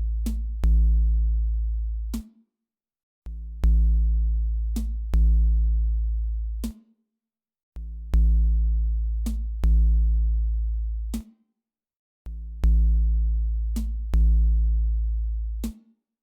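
Background electronic music: deep, sustained bass notes with drum-machine clicks, a short phrase repeating about every four and a half seconds.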